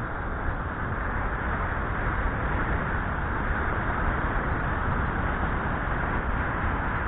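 Steady wind and road noise on a helmet-mounted camera's microphone as the bicycle rides along a street, getting a little louder after the first second.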